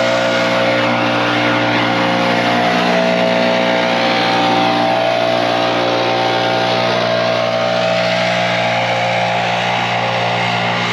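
Small gas engine of lawn equipment running steadily, loud and close, with an even drone and hiss.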